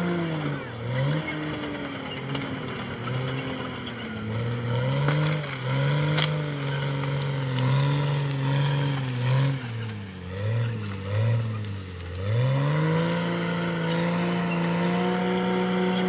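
Caterpillar D6R XL bulldozer's diesel engine lugging under load as the blade pushes brush and felled trees. Its pitch drops about half a second in and wavers low with several dips, then climbs back to a steady higher rev about three-quarters of the way through as the load comes off.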